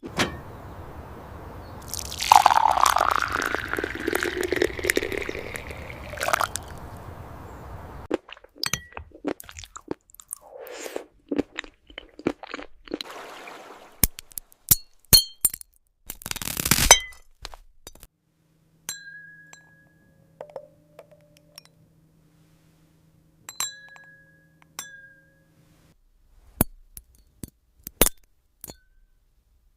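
AI-generated glass-food ASMR sounds: a long rushing, swirling sound with a gliding tone at first, then a run of sharp glassy clinks and taps, with a short dense crackle just past the middle.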